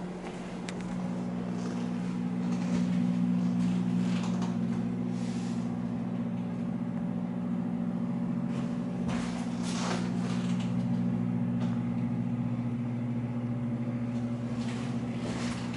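A steady low hum with a few faint scuffs and knocks on top.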